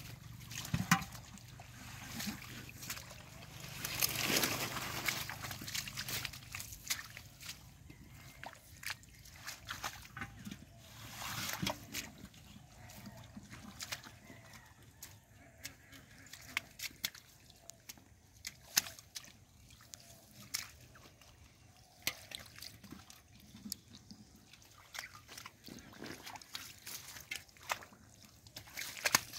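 Wet slapping and sloshing as large live catfish thrash while handled by hand and in a metal pot of water, with scattered sharp taps and two longer splashes, one about four seconds in and one about twelve seconds in.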